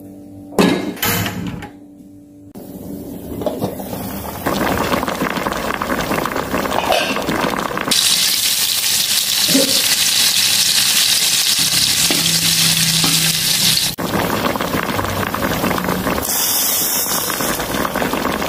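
Sliced shallots frying in hot oil in a wok: a steady sizzle that builds over the first few seconds and is loudest in the middle. A metal clatter from a pot being handled comes about a second in.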